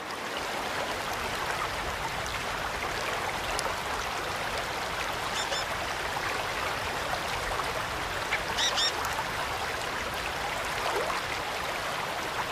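Steady rushing outdoor background noise with a few short high-pitched animal calls: a faint cluster about five seconds in and a louder one nearer nine seconds.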